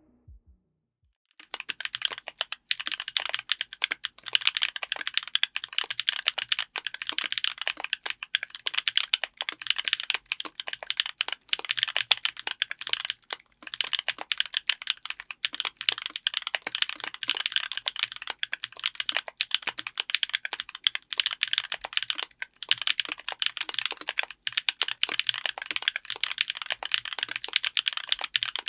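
Continuous fast typing on a mechanical keyboard with Gateron EverFree Grayish heavy tactile switches, on an FR4 plate in an aluminium case. Dense keystrokes begin about a second and a half in, with a brief pause near the middle.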